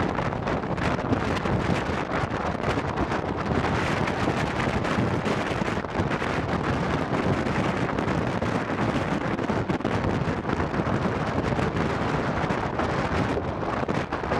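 Wind buffeting the microphone held out of a moving passenger train's window, over the steady running noise of the coaches on the rails.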